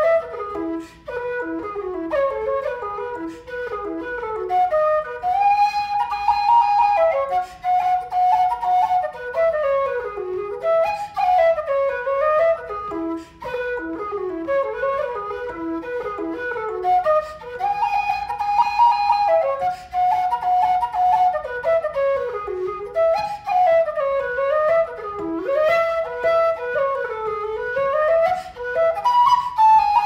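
Nightingale low E whistle played solo: an Irish tune of quick rising and falling runs, with a long held high note twice where the phrase comes round again.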